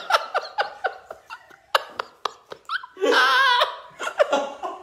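People laughing in short bursts, with a loud high-pitched wavering squeal about three seconds in.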